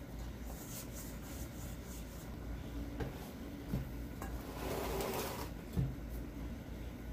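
Hands kneading dough in a stainless steel bowl, with soft rubbing and pats. The bowl and a bamboo cutting board are then shifted on a wooden table: a short scraping slide and a few light knocks, the loudest near the end.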